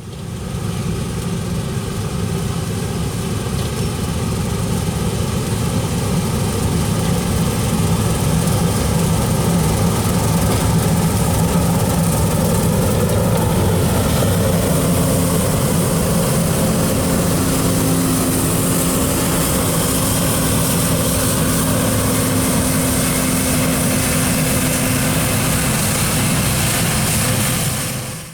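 Heavy farm machinery's diesel engine running steadily, a low hum with a faint tone holding steady from about the middle of the clip to near the end.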